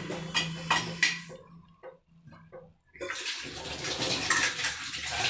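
Noodle broth boiling in a black iron kadai: bubbling and popping. The sound drops almost to silence for a moment in the middle, then comes back as a steady, denser bubbling.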